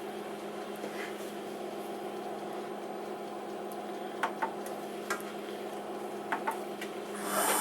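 Emco F1 CNC milling machine running after its program start: a steady hum with several sharp ticks. A louder whirring starts near the end.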